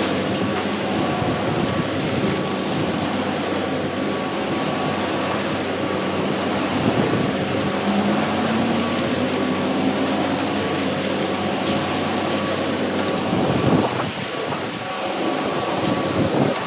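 Concrete mixer truck running, its diesel engine steady under a broad rushing noise, with a tone rising briefly about eight seconds in.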